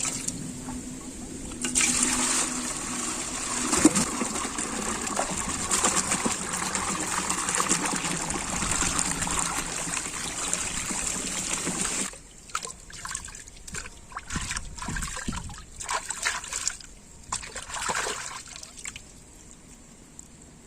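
Water running and splashing steadily for about ten seconds, then stopping and giving way to short, broken splashes and trickles.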